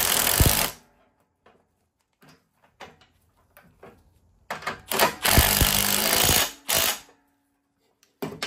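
Power impact tool hammering in bursts: one cuts off within the first second, another runs about two seconds midway, with a short blip after it. Light metal clicks come in between.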